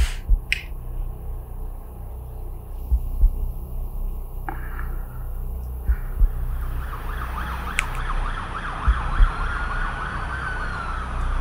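Ambulance siren coming in about seven seconds in, first a fast warble and then a slow rising and falling wail, over a steady low rumble. Pairs of short low thumps come about every three seconds.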